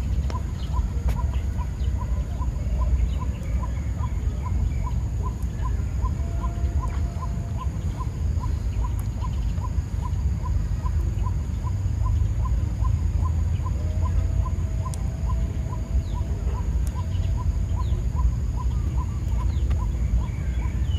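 Outdoor rural ambience: a steady low rumble, with a short high note repeated about twice a second and a thin steady high hiss.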